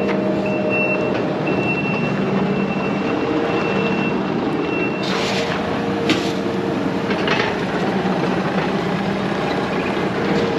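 Diesel engine of heavy equipment running steadily, with a few metallic clanks about halfway through.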